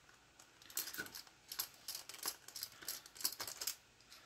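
Small screwdriver turning a screw out of a plastic lamp base: a quick, irregular run of light clicks and ticks.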